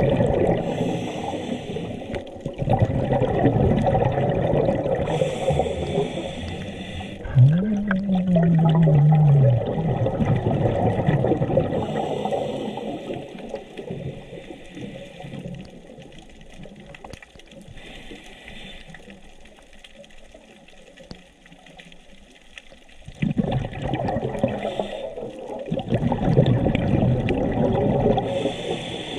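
Underwater scuba breathing through a regulator: a short hiss on each inhale, then a long rumble of exhaled bubbles, repeating every few seconds. About eight seconds in a short low tone rises and then falls.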